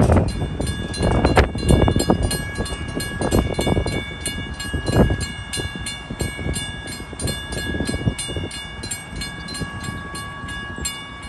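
Mechanical railroad-crossing bell striking at about three strikes a second, each strike leaving a steady metallic ring: the crossing's warning for an approaching train. It starts about half a second in and stops near the end.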